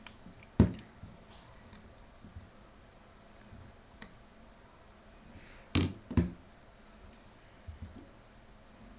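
Sparse small clicks and taps of a tiny magnetic screwdriver and an iPhone 3G being handled as the two bottom screws are taken out: a sharp click about half a second in, two more close together near six seconds, and fainter ticks between.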